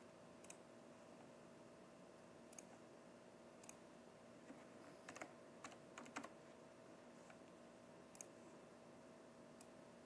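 Faint computer keyboard keystrokes and clicks, scattered singly, with a quick cluster of several about halfway through, over a faint steady hum.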